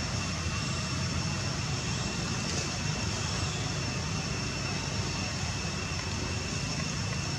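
Steady outdoor background noise: a low rumble with a thin, steady high-pitched drone over it, unchanging throughout.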